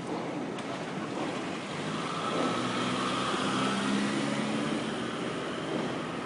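A building rattling as it shakes in an earthquake: a continuous noisy rattle, louder in the middle, with a held tone over it from about two to four and a half seconds in.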